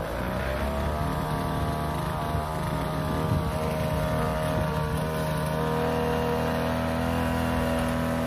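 Backpack brush cutter's small petrol engine running at high revs while its 45 cm blade cuts through tall cogon grass. The engine note dips at the start, climbs back within the first second, then holds steady.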